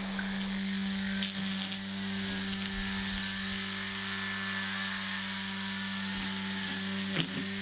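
Brush cutter running at a steady high speed as it swings through long grass, a constant motor hum with a bright hissing whir from the cutting head, and a couple of brief ticks near the end.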